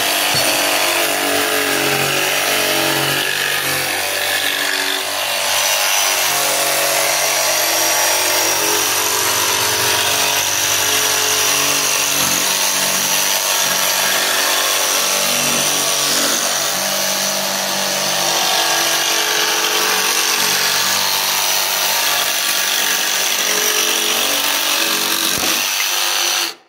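DeWalt DCS335 cordless barrel-grip jigsaw with a scrolling blade cutting a curve in plywood, running steadily, then stopping abruptly near the end.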